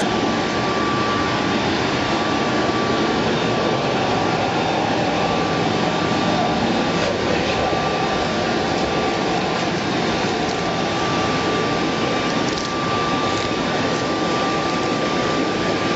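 RIDGID HD1400 14-gallon wet/dry shop vac running steadily: a loud rushing of air with a constant high motor whine.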